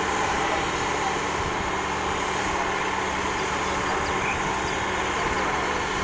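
Steady engine noise from diesel earthmoving machines working on a road embankment, with no clear change or separate event.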